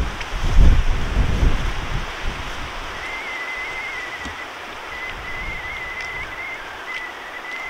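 Wind buffeting the microphone in gusts for the first two seconds, then a steady outdoor hiss with a few faint ticks. From about three seconds in, a faint wavering high whistle comes and goes.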